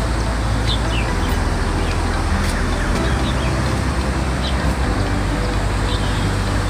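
Steady traffic rumble with a few short bird chirps scattered through.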